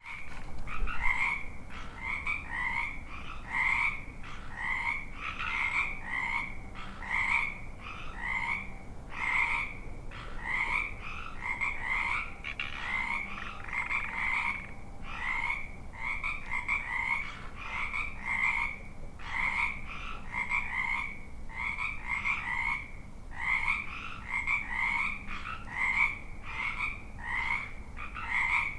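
Frogs croaking in a chorus: short calls repeating about twice a second without a break.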